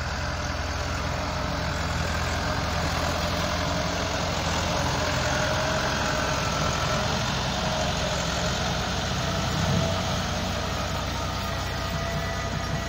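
Massey Ferguson 385 tractor's four-cylinder diesel engine running steadily while pulling a loaded trolley.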